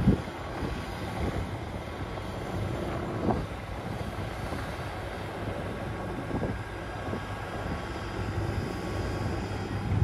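Low, steady rumble of heavy diesel engines: a four-track tractor under load, towing a loaded sugarbeet truck that cannot get traction on the slippery field, with a semi truck running close by.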